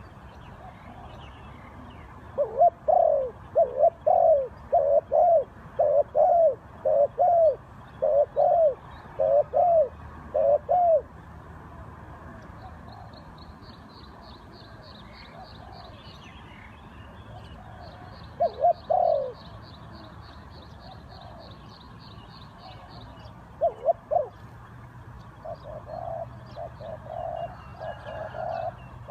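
A dove cooing: a run of about nine low, repeated coos, roughly one a second, then a few more later and a quicker series near the end. In the middle, a small bird gives two high, rapid trills.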